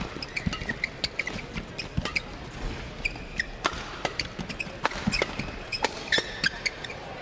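Badminton rally: rackets striking the shuttlecock in a run of sharp hits at irregular intervals, with shoes squeaking briefly on the court between shots.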